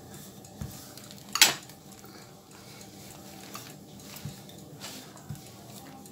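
Wooden rolling pin rolling out pizza dough on a silicone pastry mat: faint rolling with a few light knocks and clicks, the sharpest about a second and a half in.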